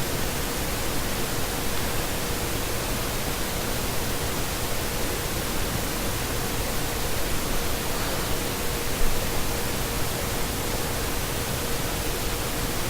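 Steady hiss of the recording's background noise, with a faint steady tone underneath and no other distinct sound.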